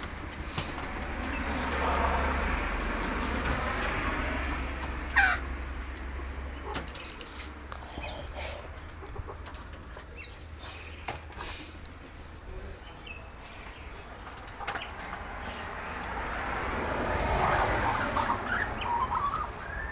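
Birds calling in a harsh, chattering chorus that swells and fades twice, with a few sharp clicks between.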